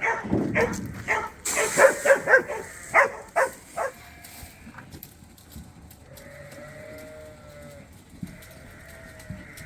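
Rams bleating: a run of short calls in the first four seconds, then quieter, with a faint drawn-out call about six seconds in.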